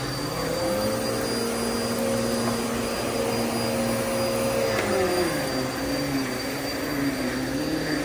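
Upright vacuum cleaner running on carpet: a steady motor drone whose pitch holds, then dips and wavers from about five seconds in as the machine is pushed and pulled.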